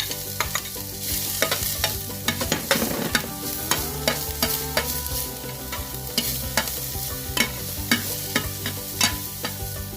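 Chopped onions sizzling in hot oil in a frying pan as they are stirred. The cooking utensil clicks and scrapes against the pan many times over a steady sizzle.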